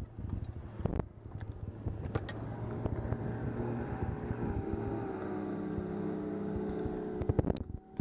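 A small motor hums steadily with an even pitch, starting about a second in and cutting off near the end, with a few sharp clicks around it.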